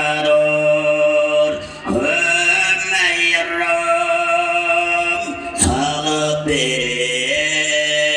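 Tuvan throat singing by one male voice: a steady low drone with slowly shifting overtones, broken by short breaths about two and five and a half seconds in. From about six and a half seconds in, a high whistling overtone sounds clearly above the drone.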